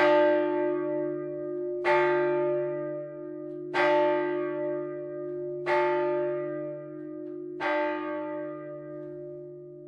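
A single swinging church bell rung on its own, its clapper striking five times at an even pace of about one stroke every two seconds. Each stroke rings on with a deep hum and dies away slowly under the next.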